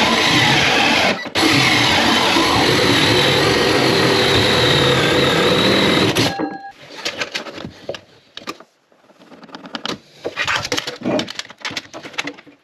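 DeWalt 20V cordless drill spinning a hole saw through a vanity cabinet's bottom panel to cut a hole for the plumbing lines, running steadily with a brief stop about a second in and stopping about six seconds in. After that, a few light knocks and scrapes.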